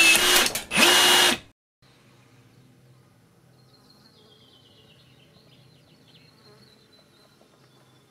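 Cordless pop rivet tool running twice in quick succession: two loud motor whirs with a steady whine, each under a second, that cut off suddenly. Then a faint buzz of insects with a faint high chirping call.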